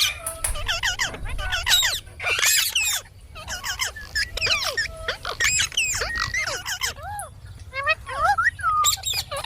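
Indian ringneck parakeet chattering: a rapid string of short, squeaky, pitch-bending calls and chirps, broken by brief pauses.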